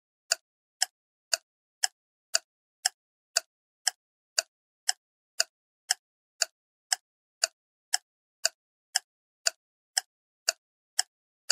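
Countdown-timer ticking sound effect: sharp, even clock-like ticks, about two a second, with silence between them.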